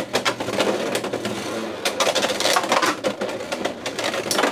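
Beyblade X spinning tops Driger Slash and Dran Buster battling in a plastic stadium after launch: a rapid, continuous clatter of hits and rattling as they collide and spin.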